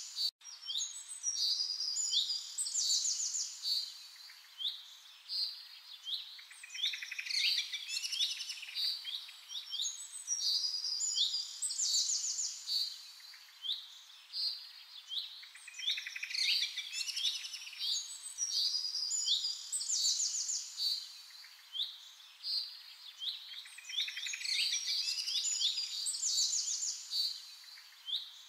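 Songbirds singing: a busy, unbroken run of high chirps and rapid trills, with a split-second dropout right at the start.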